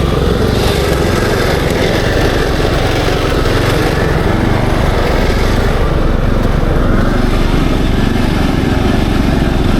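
Small engine of a Kubota SPJ400 walk-behind rice transplanter running steadily.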